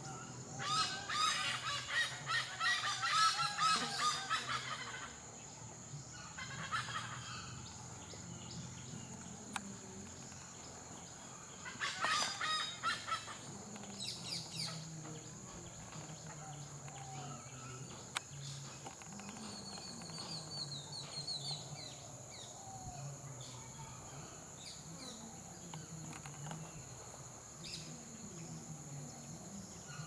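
Hornbills calling in loud bursts of rapid notes: a long run of about four seconds near the start, a short one around seven seconds in, and another around twelve seconds in. A steady high insect drone runs underneath.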